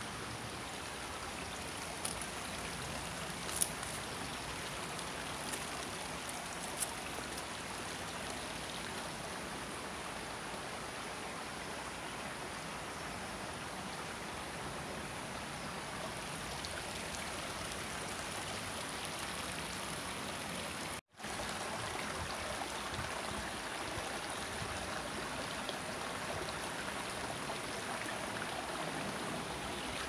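Steady rushing of a shallow stream flowing over a rocky bed, with a few faint clicks in the first several seconds. The sound cuts out for a split second about two-thirds of the way through.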